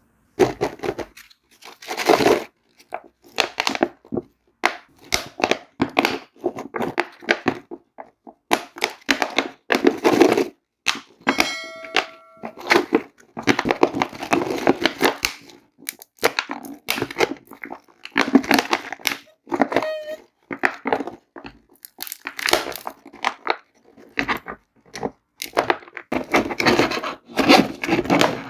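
Plastic candy wrappers and packaging being torn open and crinkled by hand, in irregular bursts. A short ringing tone sounds briefly about twelve seconds in.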